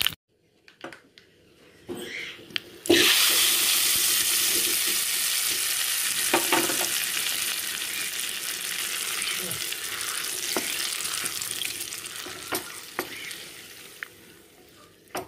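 Hot tempering oil with fried curry leaves and dried red chillies poured into cooked tomato pickle in a clay pot, setting off a loud sizzle about three seconds in that slowly dies away. A few sharp knocks of the ladle on the pot sound through it.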